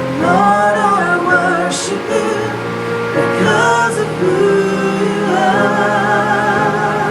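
Gospel worship music: voices singing held notes with vibrato over steady keyboard-like accompaniment.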